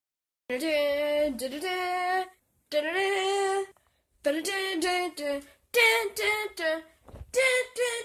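A high female voice singing unaccompanied, in several short phrases of held notes with brief pauses between them.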